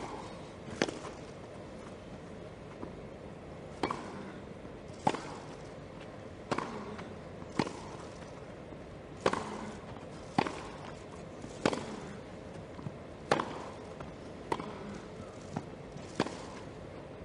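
Tennis rally on a grass court: sharp racket-on-ball hits traded back and forth, one about every one to one and a half seconds, over a steady low background noise.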